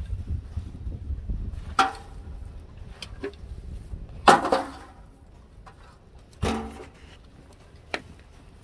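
Metal shovel scraping and scooping dung and straw off a dirt floor: a low scrape at first, then four sharp scrapes and knocks of the blade, the loudest about four seconds in.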